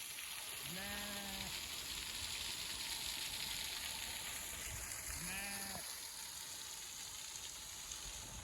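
Sheep bleating twice, each call short and steady in pitch, about four seconds apart, over a steady hiss of a mountain stream.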